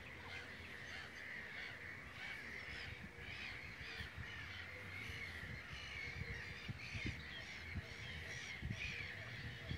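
A chorus of harsh, cawing bird calls from many birds, overlapping one after another, over a low rumble.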